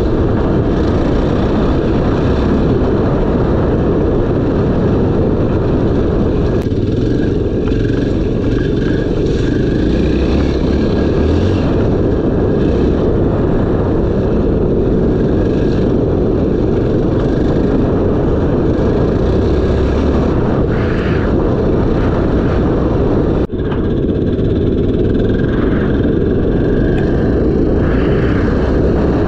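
Motorcycle engine running steadily while riding, with heavy wind and road rush over it. The sound changes abruptly twice, about a quarter of the way in and again about four fifths of the way in, where it briefly drops.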